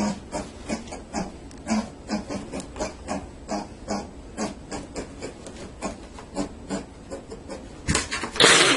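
An animal making a rapid series of short grunts, about two to three a second, followed near the end by a loud, harsh noisy burst.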